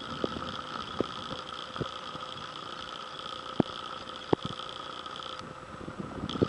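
A cat chewing a mouse, with a few sharp, separate crunches as it bites down. Behind it runs a steady high drone of several tones, which stops about five seconds in and comes back near the end.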